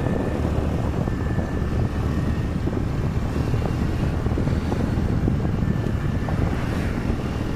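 Steady low motor rumble of a moving vehicle, with wind buffeting the microphone.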